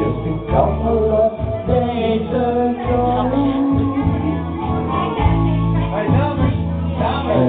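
Karaoke: a woman singing into a microphone over a backing track with a steady bass line.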